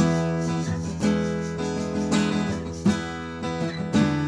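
Background music: strummed acoustic guitar chords, with a new strum about once a second.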